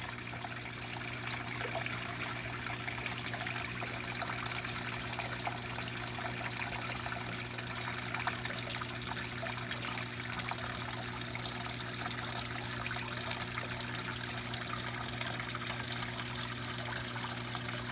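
Small aquarium waterfall in a paludarium, water trickling and splashing steadily, with a low steady hum beneath it.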